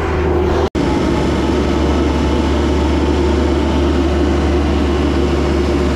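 A heavy engine running steadily, with a deep low hum that holds unchanged and breaks off for an instant less than a second in.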